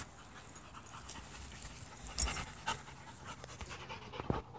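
Dogs panting as they play, with a sharp knock about two seconds in and another shortly before the end.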